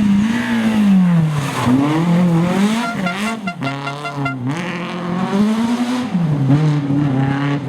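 BMW E30 rally car engine revving hard under full throttle, its pitch climbing and dropping sharply several times through gearshifts and lifts.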